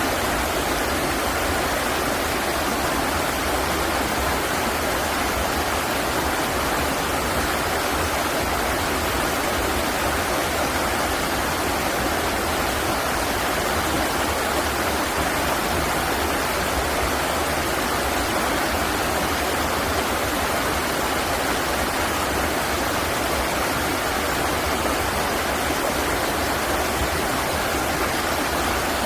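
River water flowing and rushing steadily, a continuous even splashing hiss with no breaks.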